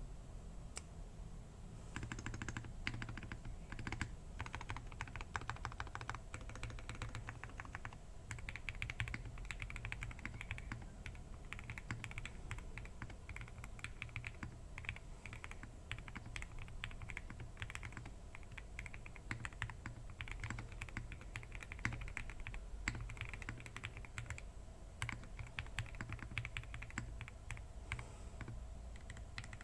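Continuous typing on a KBDfans Tiger 80 TKL mechanical keyboard with a polycarbonate plate, foam and tape mod, lubed SP-Star Meteor White switches and PBTfans Cherry-profile PBT keycaps. The keystrokes come in a steady, quick stream, sparse for the first couple of seconds and then dense.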